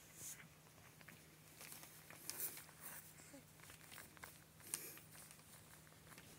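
Faint crinkling of a foil sheet under a lying cat as it shifts, with a few soft clicks, over a faint steady hum.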